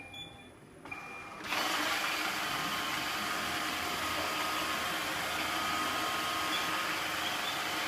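iRobot Roomba robot vacuum giving a couple of short beeps, then its vacuum motor starting about one and a half seconds in and running steadily.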